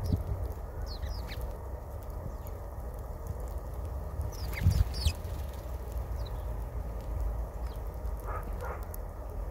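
Small birds giving short, high chirps at a feeder over a steady low rumble, with a couple of louder knocks about five seconds in.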